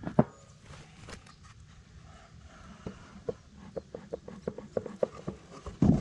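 Handling sounds of a bee smoker and a wooden beehive being worked: a sharp click just after the start, a run of light ticks and knocks in the middle, and a loud low thump near the end as the outer cover comes off.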